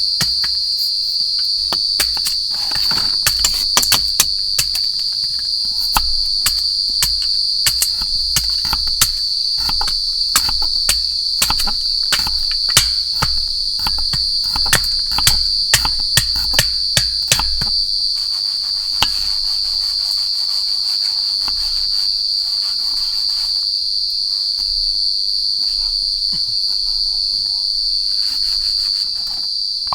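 Steady high-pitched chorus of forest crickets, with many sharp irregular clicks and pops over the first half that thin out about eighteen seconds in.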